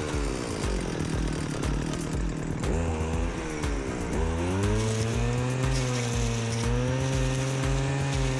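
Stihl two-stroke brush cutter with a metal blade running at high revs while cutting matted dry grass. Its engine pitch sags and climbs a few times in the first half, then holds steady at full revs for the rest.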